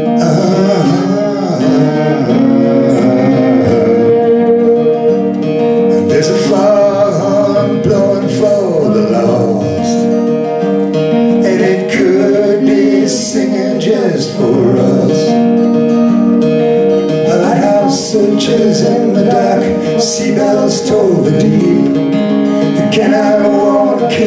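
Live folk song: a strummed acoustic guitar with a violin line in the first part, then singing, a man's voice with a woman's harmony.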